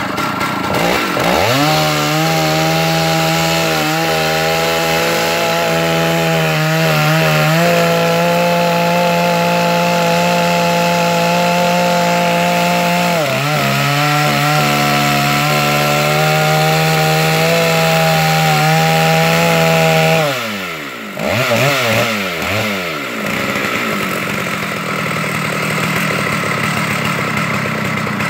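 Large chainsaw mounted in a chainsaw mill, ripping lengthwise through a log at full throttle. The engine bogs briefly twice and recovers. About twenty seconds in the revs fall away as the throttle is let off, and the engine runs on with a lower, rougher sound.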